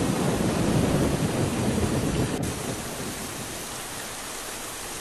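Rain and thunder sound effect: a steady hiss of rain, with a low rumble of thunder that fades away about halfway through.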